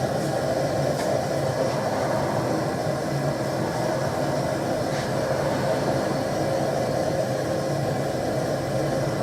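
Gas forge burner running, a steady continuous rush of gas flame.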